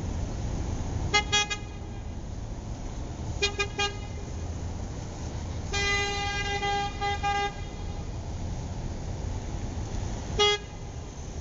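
Car horn honking: a quick burst of short toots about a second in, another about three and a half seconds in, one long honk of nearly two seconds around six seconds in, and a single short toot near the end. A steady low rumble sits underneath.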